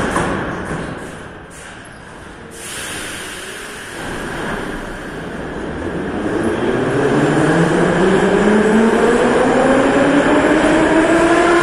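A metro train pulling out of a station. The doors bang shut at the start, then the rumble of the wheels builds while the electric traction motors' whine rises steadily in pitch as the train accelerates away.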